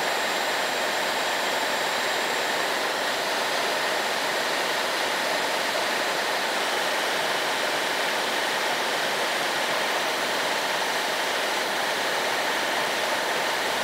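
Dyson Supersonic hair dryer running, a steady rush of blown air at constant strength, with a thin high whine in the first few seconds.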